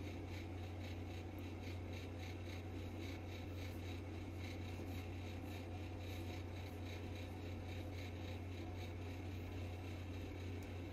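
Table knife spreading a soft filling over rolled-out bun dough: faint, repeated scraping strokes, over a steady low hum.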